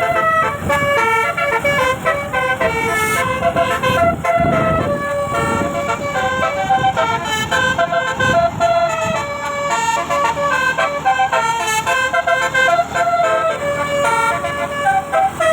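Telolet musical air horn playing a quick, continuous multi-note tune, with a vehicle's low rumble underneath.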